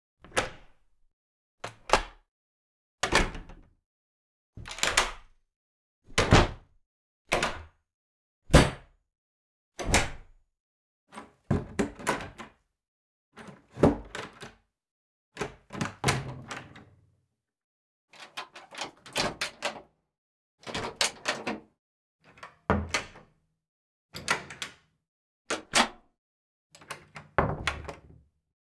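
A run of separate door sounds, one after another with short silences between. The first several are single sharp shuts or thuds. The later ones are clusters of clicks and knocks lasting about a second each, like a latch, handle and door moving together.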